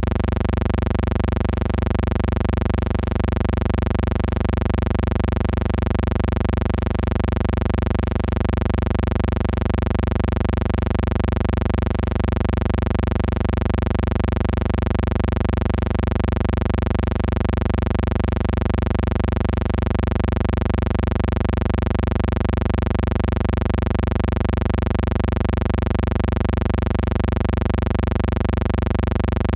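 Steady low hum with hiss, unchanging throughout: background noise on the track of a silent film transfer.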